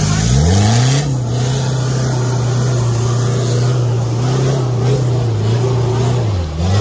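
Off-road 4x4's engine revving hard under load on a steep rock climb. The revs climb in the first second, hold high and steady, then drop briefly near the end and pick up again.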